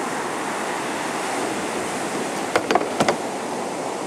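Ocean surf breaking and washing up a sandy beach, a steady rushing wash. A quick cluster of four sharp clicks comes about two and a half to three seconds in.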